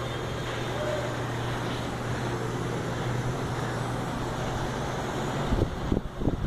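Steady low hum with an even rushing noise, the running background of a workshop, with a few short knocks near the end.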